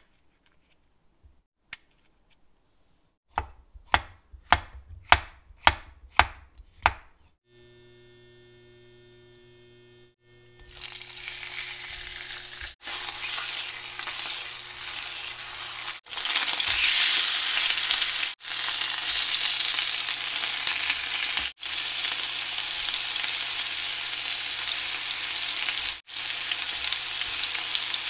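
A knife chopping white mushrooms on a wooden board, about seven quick knocks. Then a short steady electric hum, then chicken breast sizzling as it fries in oil in a non-stick pan, growing louder about halfway through.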